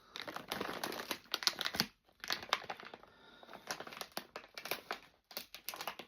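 Crisp packet crinkling as it is handled, with a brief pause about two seconds in.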